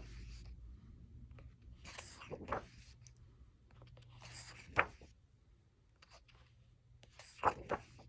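Thick-paper pages of a large colouring book being turned by hand, a soft papery swish every couple of seconds.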